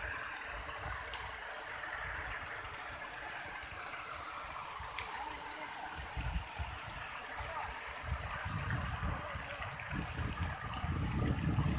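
Ornamental garden fountain jets spraying and splashing into a pool: a steady hiss of falling water. A low rumble grows louder near the end.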